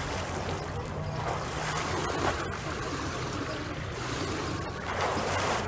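Outdoor swimming pool ambience: water splashing and lapping over a steady low hum, with a louder burst of splashing about five seconds in.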